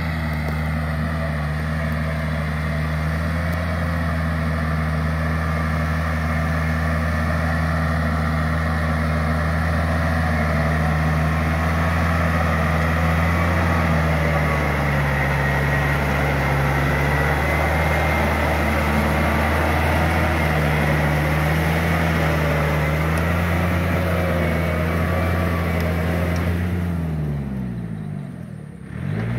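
Yanmar EF494T tractor's diesel engine running steadily under load as it pulls a rotary tiller through a flooded rice paddy. Near the end the sound dips and the engine note falls and then climbs back up.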